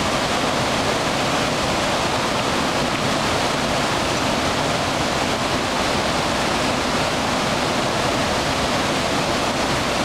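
Fast white-water river rushing and churning over rocks, a steady, even rush of water noise.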